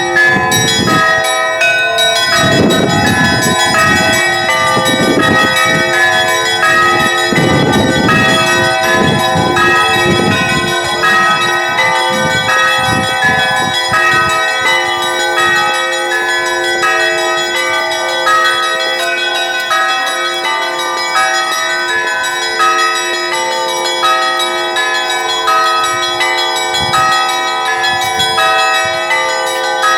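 Russian Orthodox church bells rung together in a peal: quick repeated strikes on the smaller bells over layered, lingering tones. Deep strokes of a large bell come every second or two through the first ten seconds or so, then become rare.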